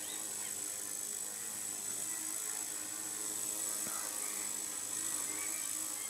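Small electric RC helicopter hovering: its single motor drives a freely hinged, 3D-printed two-blade rotor with a steady buzz and hum, a thin high whine on top, the pitch wavering slightly as it holds station.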